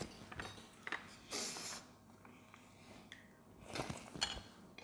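Quiet table sounds of children eating: faint taps of tableware, a short breathy hiss about a second and a half in, and a cluster of small clicks near the end.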